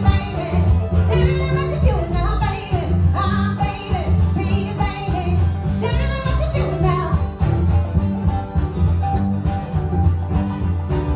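Live acoustic string band with a woman singing over mandolin, acoustic guitar and a pulsing upright bass. The singing stops about seven seconds in and a bowed cello carries the melody.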